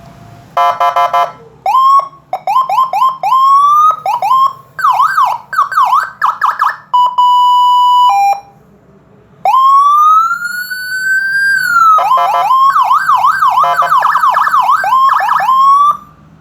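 Electronic Landun-style police siren module sounding loudly through its different tones in turn: short buzzy horn blasts, a run of quick rising whoops, fast up-and-down yelping, a steady single tone, one slow wail that rises and then drops away, and fast yelping again mixed with horn blasts.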